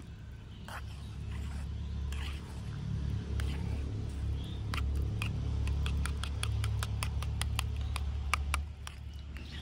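Small metal spoon clicking against a small bowl as raw eggs are beaten, quick irregular clicks that come thicker through the middle and latter part before easing off near the end. A steady low rumble runs underneath.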